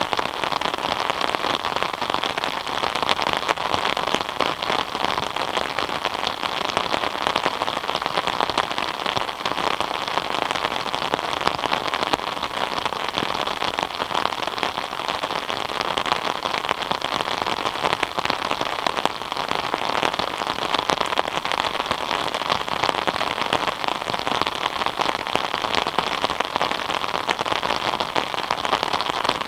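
Steady rain falling: an even hiss made of many fine drop ticks, keeping the same strength throughout.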